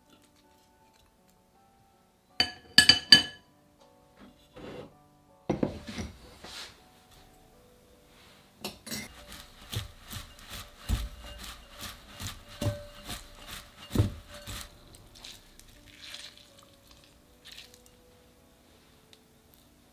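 Chopsticks clinking against a ceramic plate a few times, then hands scrunching and rubbing salted shredded cabbage in a glass bowl, a run of soft, regular rustling strokes. Quiet background music plays underneath.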